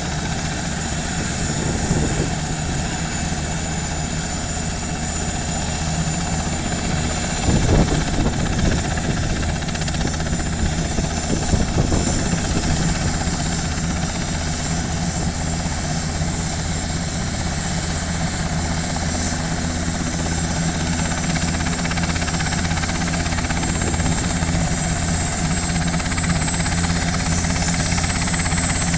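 Helicopter running steadily, a constant low rotor beat under a steady high whine, with a few brief louder rumbles about a quarter of the way in.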